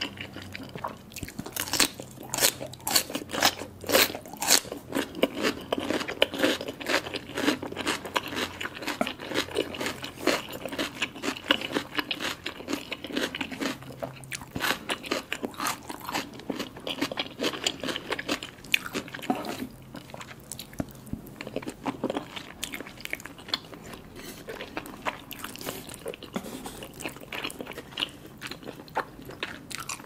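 Close-miked crisp crunching bites into a raw cucumber spear, loudest in the first few seconds, followed by steady mouth chewing of soft food.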